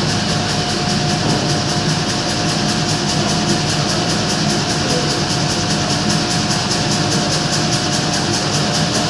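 Serra ME 110 sawmill running steadily: a continuous, even mechanical noise with a faint steady whine.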